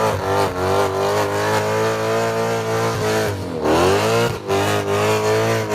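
Car engine revving hard and held at high revs, the pitch dropping and then climbing back up about three and a half seconds in.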